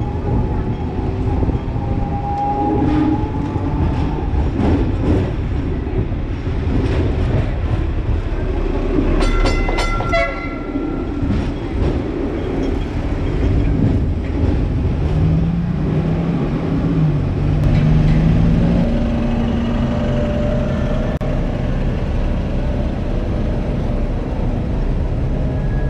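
Hong Kong double-deck tram running, heard from inside the driver's cab: a steady low rumble of the wheels on the street rails with scattered clicks over joints and points. About ten seconds in there is a quick run of ringing strikes, and in the second half a low hum that shifts in pitch.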